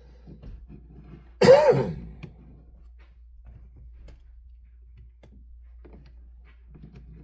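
A man clears his throat once, a short loud burst about a second and a half in, over a low steady hum.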